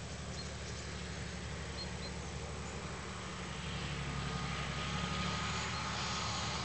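MÁV class 418 (M41) diesel-hydraulic locomotive approaching from afar with a train: a steady low engine hum, with a rising hiss and a thin steady whine coming in from about four seconds as it draws nearer. A few faint short chirps sound in the first two seconds.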